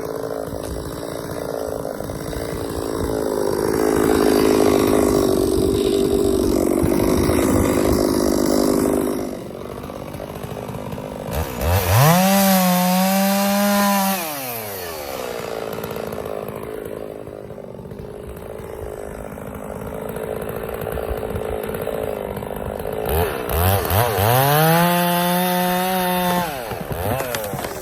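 Gas chainsaws running, with a louder steady stretch in the first third. After that a saw is revved up to full speed, held there and let back down to idle twice, about twelve and twenty-four seconds in.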